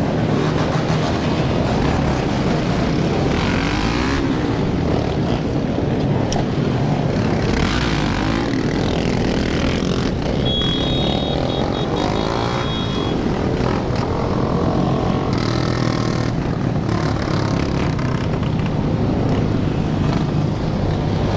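Many motorcycle engines running together, revving again and again so that their pitches rise and fall over one another. A brief high-pitched beeping cuts through about ten seconds in.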